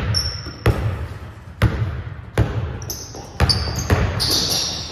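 Basketball being dribbled on a hardwood gym floor: about six bounces, spaced unevenly between half a second and a second apart, each echoing in the large hall. Sneakers squeak on the floor as the player drives toward the basket near the end.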